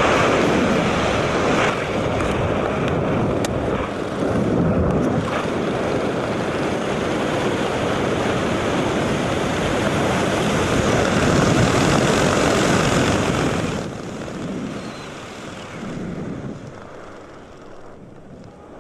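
Wind rushing hard across the camera microphone during a skydive, a loud steady roar that eases off about fourteen seconds in.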